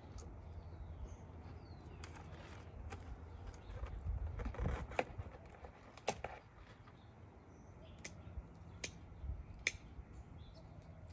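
Scissors snipping succulent stems: a few sharp snips in the second half, after some handling rustle. Birds chirp faintly in the background.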